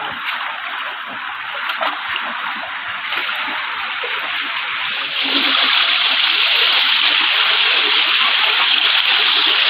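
Shallow rocky stream rushing over stones, a steady hiss that grows louder about five seconds in.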